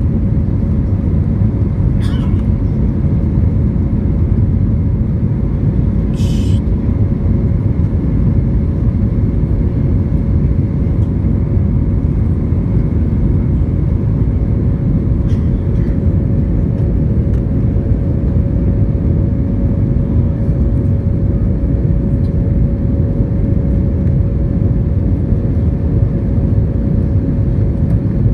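Steady engine roar of an Airbus A320 climbing after takeoff, heard inside the cabin from a seat over the wing, with a steady hum running through it. A faint click about two seconds in and a brief hiss about six seconds in.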